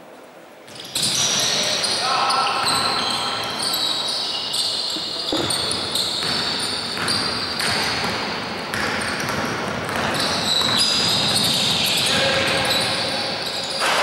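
Basketball game sounds in an echoing sports hall: the ball bouncing on the court, sneakers squeaking and voices calling out. It starts abruptly about a second in, after a quieter moment.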